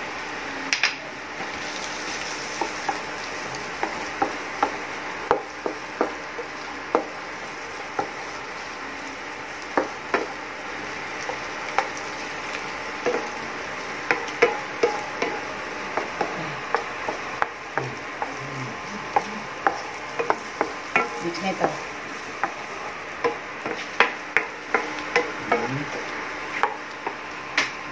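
Wooden spatula stirring diced onion, carrots and tomato paste in a nonstick frying pan, with irregular sharp taps and scrapes against the pan, about one or two a second, over a steady frying sizzle.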